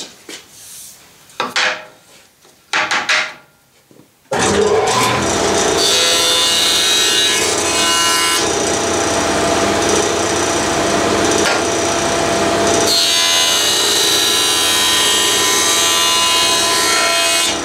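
Grizzly jointer running and face-jointing a white oak board as it is pushed by hand over the spinning cutterhead. The machine noise starts abruptly about four seconds in and stays steady, and the cutting is louder in two stretches as the board is fed through.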